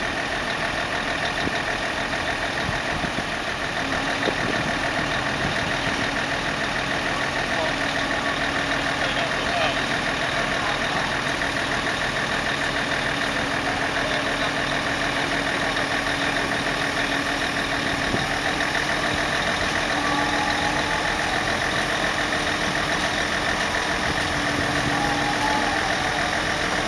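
Diesel engine of a Grove mobile crane running steadily while it lifts a precast concrete stair flight, with a steady hum joining in about three seconds in.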